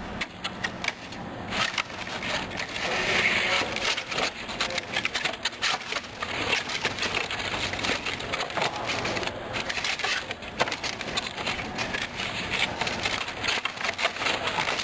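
Cardboard divider pieces being slid and slotted into one another by hand: steady scraping and rustling of cardboard with many small clicks and taps.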